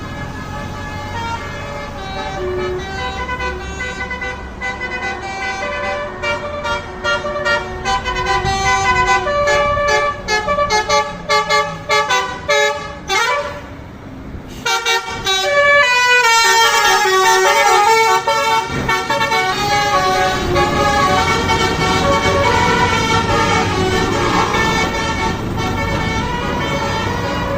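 Tour bus telolet horn playing a multi-tone melody in short stepped notes, which quicken before a brief break about halfway through. After the break it plays swooping siren-like glides and more notes over the low sound of the bus engine running.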